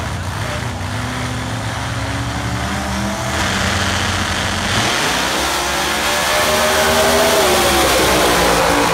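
No-prep drag race car engines running loudly, jumping in volume about three seconds in, with the engine pitch climbing steadily through the second half as they rev hard.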